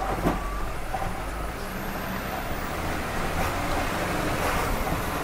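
Loaded truck's diesel engine running steadily as the truck climbs a mountain road, heard from inside the cab with road noise.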